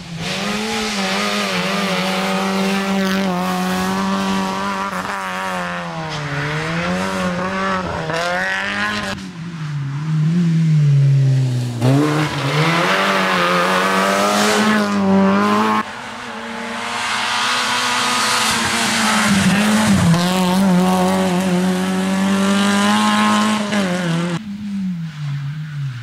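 Fiat Seicento rally car's engine driven hard on a tarmac stage: the note is held at high revs and dips and climbs again and again with gear changes and lifts. It breaks off sharply about two thirds of the way in and again near the end, where the car is heard again from another spot.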